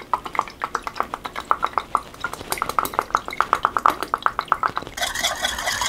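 Fish sauce glugging out of a bottle into a bowl of sauce: a quick, even run of glugs, about seven a second, for some five seconds. Near the end a spoon starts stirring and scraping in the ceramic bowl.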